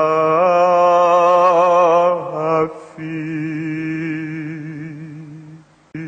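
A single voice chanting in long held, wavering notes. It breaks off about two and a half seconds in, then resumes on a lower held note that fades away near the end.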